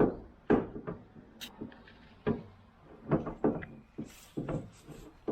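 A string of irregular knocks and clunks from hardware being handled, the loudest right at the start and about half a second in.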